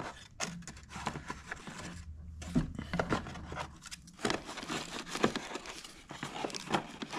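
Packaging being handled: rustling and scraping as a hand rummages in a molded pulp cardboard tray and brushes a plastic bag, with irregular small clicks and crinkles.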